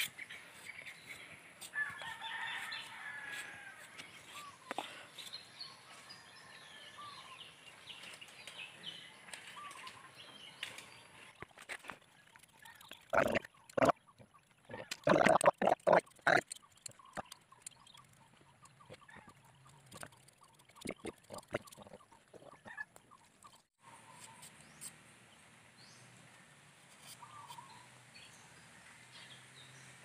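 Chickens clucking in the background, with short calls early on and again faintly near the end. Around the middle comes a cluster of loud, sharp knocks and rustling close by.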